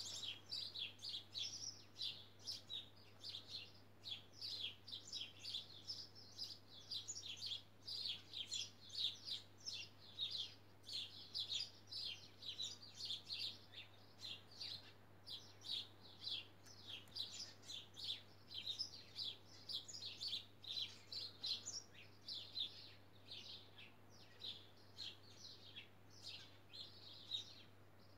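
Small birds chirping continuously, a quick run of short high-pitched chirps, two or three a second, with a faint steady low hum underneath.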